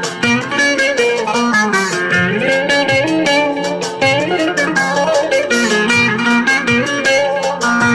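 Electric bağlama (electro saz) playing a fast-picked instrumental melody of a Turkish folk song over a sustained low note, with no singing.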